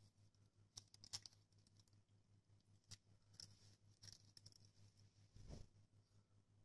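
Near silence with a few faint, scattered soft clicks and smacks of a puppy licking a kitten's head, and a short soft rustle about five and a half seconds in.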